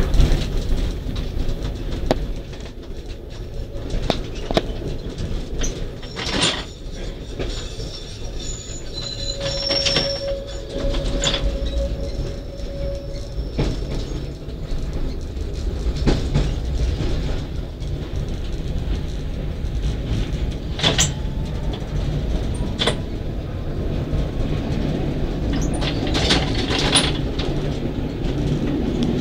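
V3A tram running along the rails with a steady low rumble of wheels and running gear, broken by occasional sharp knocks. Several seconds in, a wheel squeal sounds on the curve before the track straightens.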